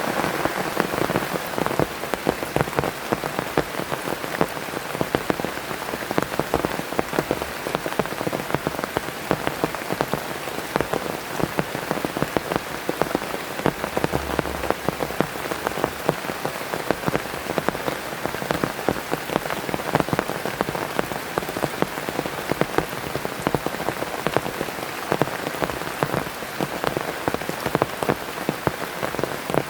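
Heavy rain falling steadily, with a dense, irregular patter of individual drops striking a surface close by.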